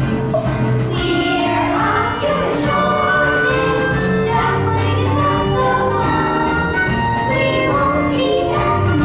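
A group of young voices singing a musical number together with instrumental accompaniment, holding long notes.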